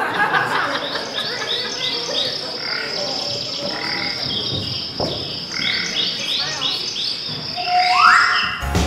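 Recorded frog croaks and insect chirps, many short repeated calls, opening a children's song about eating bugs. Near the end a rising sweep leads into the song's band music.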